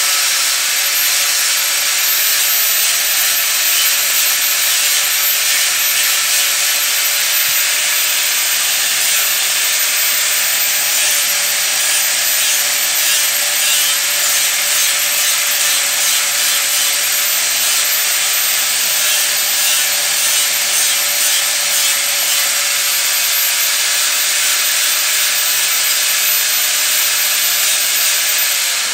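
Electric angle grinder with an abrasive disc running steadily with a high whine while grinding down a wooden spoon blank, the hiss of the disc on the wood over the motor. Near the end it is switched off and its whine falls as the disc spins down.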